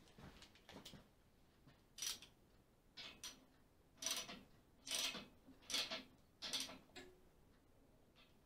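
Ratchet spanner worked in about seven short strokes, roughly one a second, each stroke a quick run of clicks with a slight metallic ring, tightening the bolts that fix an air-cooled VW engine to the mounting plate of an engine stand.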